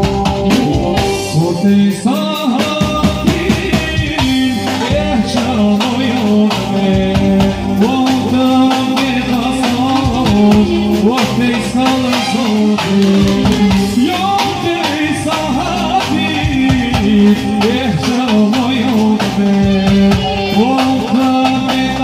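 Live band playing dance music: a drum kit keeps a steady beat under electric keyboard and saxophone, with a man singing into a microphone.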